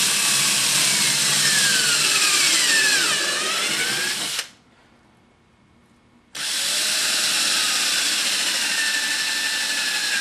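Cordless drill boring a pilot hole into a pine block. The motor's pitch sags, it stops about four seconds in, then restarts a couple of seconds later and sags again: the drill's battery is running flat.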